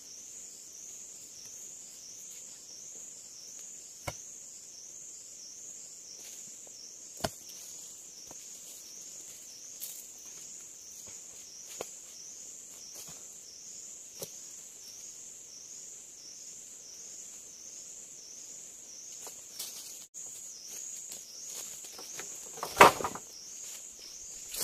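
Forest insects shrilling in a steady high-pitched chorus that pulses about twice a second, with a few sharp clicks and knocks scattered through it. Near the end comes one loud thump with a brief clatter.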